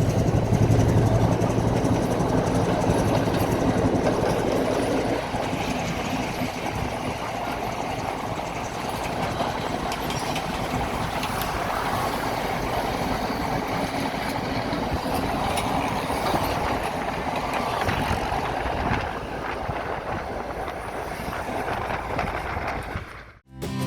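Class M6 diesel locomotive hauling a train at speed: a steady engine hum over continuous rolling and rail noise. The engine tone is strongest for the first few seconds, then eases, and the sound cuts off just before the end.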